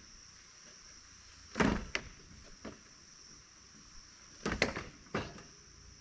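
Homemade wooden pipe spool turning on a tractor loader as black poly water pipe is pulled off it, creaking and knocking in two short bursts about three seconds apart, over a steady high insect drone.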